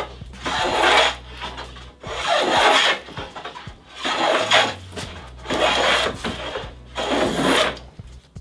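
Hand plane cutting a moulding profile along a wooden strip on a sticking board: five loud hissing strokes, each about a second long, with short pauses between them as the plane is drawn back.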